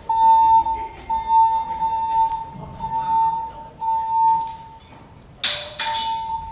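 Fire alarm evacuation system sounding its alert tone between voice announcements: a steady high tone pulsing on and off about once a second. A short, loud burst of noise breaks in about five and a half seconds in.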